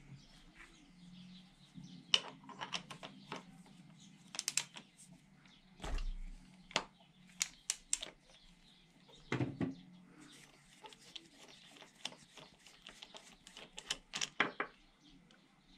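Irregular light metallic clicks and knocks, some in quick clusters, as a long spark plug socket wrench is handled and fitted on the spark plug of a Yamaha F6 four-stroke outboard.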